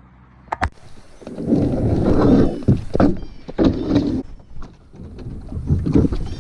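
A plastic fishing kayak being set off: a couple of sharp knocks, then irregular scraping and splashing rushes about once a second as the boat is pushed out and paddled.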